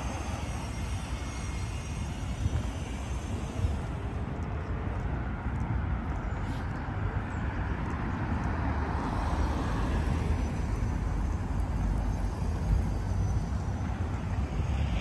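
Street traffic: a steady low rumble of vehicles, with a faint high whine that fades out about four seconds in.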